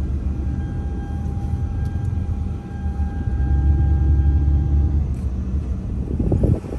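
Inside a moving Toyota SUV: steady low engine and road rumble, swelling for a couple of seconds past the middle, with a faint steady high tone over it until near the end.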